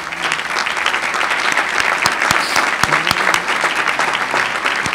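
Audience applauding: a roomful of people clapping, swelling up at the start and then holding steady.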